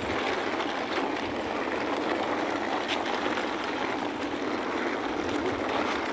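Wheeled suitcases rolling over rough concrete, giving a steady, even rolling noise.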